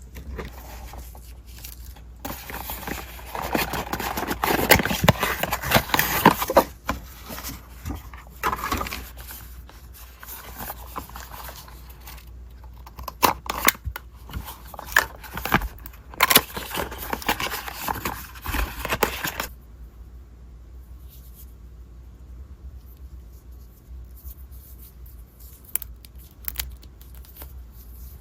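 Packaging being handled and opened: rustling, scraping and tearing with sharp clicks and taps. It dies down to faint occasional taps about two thirds of the way through.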